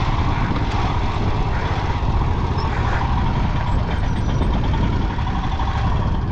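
Royal Enfield Himalayan 411's single-cylinder engine running steadily, with a hiss over it.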